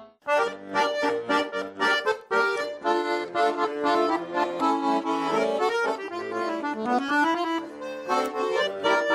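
Instrumental introduction of a song: a busy, quick-noted melody over a steady beat, starting just after a brief gap at the outset.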